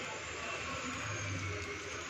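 Steady faint hiss with a low hum underneath, from rice batter cooking in an oiled iron kadai on a gas stove.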